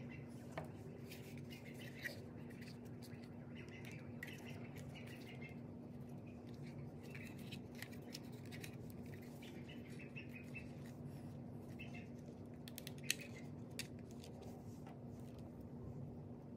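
A few sharp clicks and light taps as hands handle the drone's plastic body and a microSD card on a table, the sharpest click about 13 seconds in. Under them runs a steady low hum, and faint high chirps come and go.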